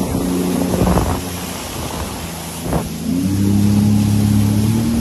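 Jet ski engine running under way, with wind on the microphone and rushing water. About three seconds in its pitch rises and it gets louder as the throttle opens, then holds steady.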